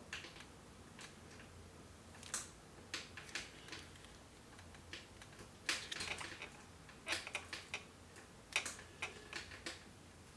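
Irregular light clicks and taps of small parts and hand tools working against a Singer 348 sewing machine as the needle bar rocker arm's bottom stud is worked into place. The clicks come in short uneven clusters over a faint steady hum.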